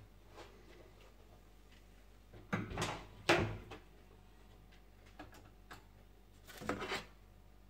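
Kitchen handling noises: a plastic measuring jug set down on the counter, with two short clattering bursts about two and a half and three and a half seconds in, and one more brief burst near the end.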